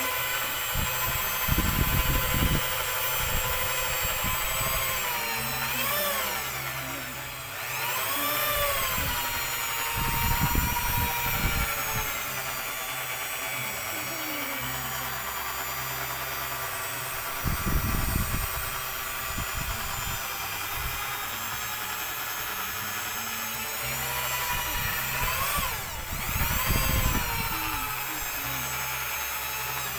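Electric drill with a mixing rod running steadily as it stirs a bucket of liquid dish soap mix. Its motor pitch drops and climbs back a few times, most deeply about a quarter of the way in and again near the end.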